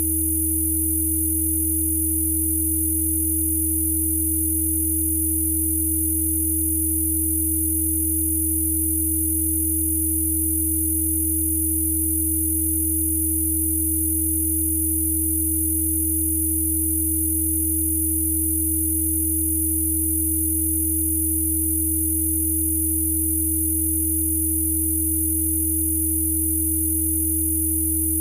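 Electronically generated Rife frequency tones: several pure tones layered, a low hum, a clear mid tone and a thin high whine, held perfectly steady without a break.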